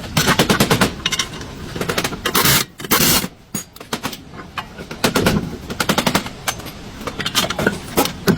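Several bursts of rapid knocking impacts from repair tools at work, each run lasting up to about a second.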